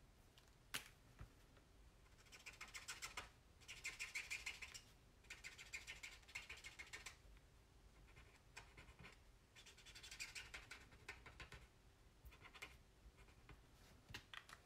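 Faint scratching of a tri-blend alcohol marker's tip rubbed back and forth on vellum in quick short strokes. It comes in several bursts of a second or two each, with brief pauses between them.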